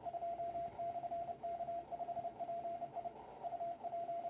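Morse code (CW) received on a Yaesu FTDX101MP transceiver: a single steady tone keyed in dots and dashes over faint band hiss. It is the DX station PJ2/K5PI sending his call sign, then UP and JA, meaning he is working split, listening up, and calling only for Japanese stations.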